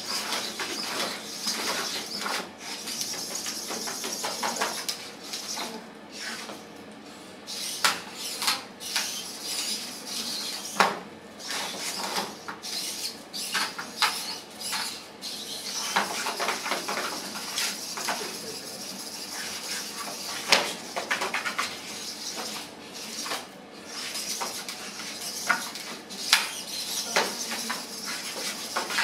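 Servo motors of small humanoid wrestling robots whirring, with irregular clattering and knocks from their metal frames as they grapple and hit the mat.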